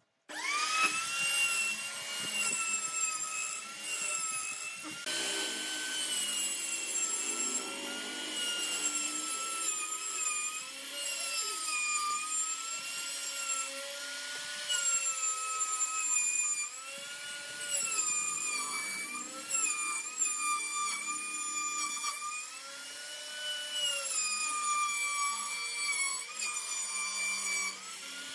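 Maktec trim router starting up and cutting a circle through a wooden ring on a pivoting jig. Its high motor whine sags in pitch whenever the bit bites into the wood and recovers as the load eases.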